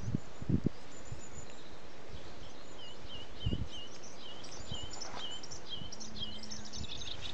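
Melodious warbler singing: a string of short repeated notes that quickens into a faster, jumbled warble from about halfway. A few low thumps sound near the start.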